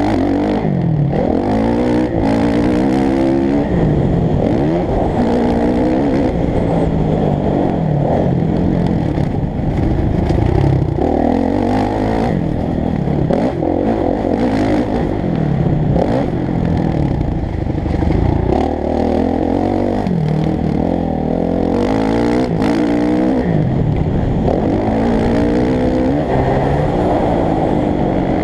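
Motocross bike engine heard from on board, revving up and dropping back over and over as the bike accelerates, changes gear and slows on a dirt track.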